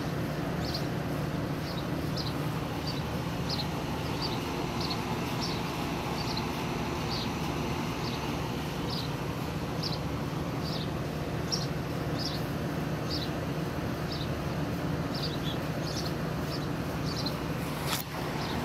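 A steady low hum, with a small bird chirping over it: short high chirps, irregular, about one or two a second. A single sharp click comes near the end.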